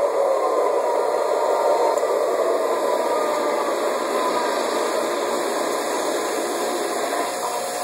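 Model railroad train running on ceiling-suspended track: a steady whirring rumble of motor and wheels on the rails, with a faint whine that falls slightly in pitch at the start.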